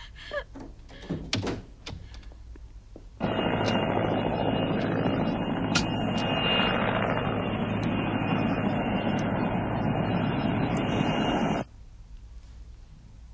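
PZL Świdnik Mi-2 helicopter heard from inside the cabin: a loud, steady rush of its turbine engines and rotor with a thin high whine. It starts abruptly about three seconds in and cuts off suddenly near the end. Before it come a few knocks and thuds.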